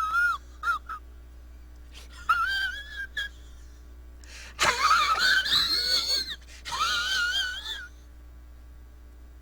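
A high-pitched, wavering wheezing squeal, a comedy sound effect, heard in about four separate bursts. The longest and loudest burst comes near the middle.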